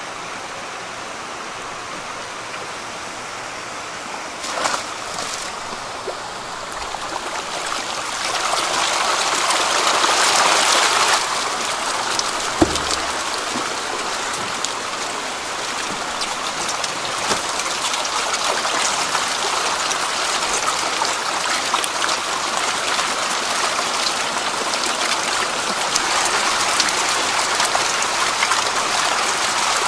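A mass of farmed eels writhing and splashing in a shallow feeding pit around a lump of feed paste: a steady wet churning full of small slaps and splashes that grows louder about a third of the way in. A single thump comes near the middle.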